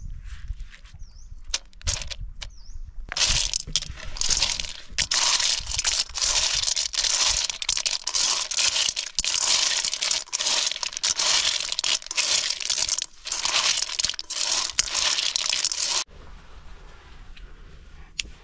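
River snails in their shells being mixed by hand with chili paste in a metal bowl: a dense crackly rattle and crunch of shells that stops abruptly near the end.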